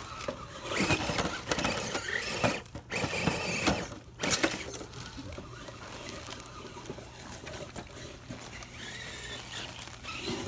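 Small electric RC rock crawlers' motors and gears whining as their tyres scrabble over granite boulders. In the first few seconds there are sharp knocks and clatter as one crawler rolls over on the rocks.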